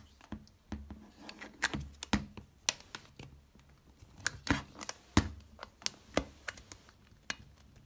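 Irregular sharp clicks and light taps, roughly a dozen of them, as the black plastic cap of the sound valve is pressed shut on the lid of an aluminium Bialetti Moka Sound pot and the pot is handled.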